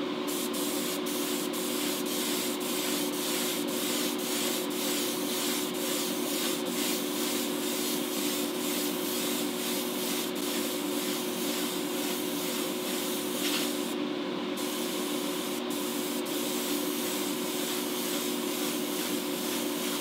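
Airbrush hissing steadily as it sprays candy paint, over a steady motor hum. The hiss breaks off for a moment about fourteen seconds in.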